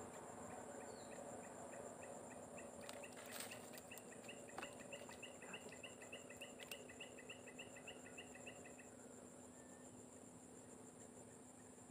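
Faint insects calling: a steady high drone with a rhythmic run of short chirps, about four or five a second, that starts a few seconds in and stops near the end. A few faint clicks are heard along with them.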